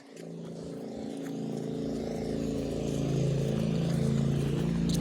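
A motor vehicle's engine running at a steady pitch, growing steadily louder as it draws near.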